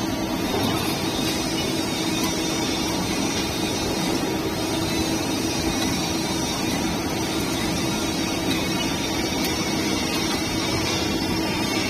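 Machinery running with a steady, even noise and a constant hum.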